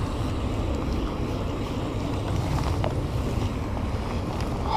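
Wind buffeting the camera microphone, a steady low rumble, with one faint tick about three seconds in.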